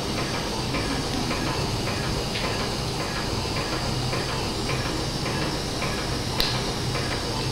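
Steady hiss with a low hum, and one sharp snap about six and a half seconds in as a wire cutter bites through a Kirschner wire.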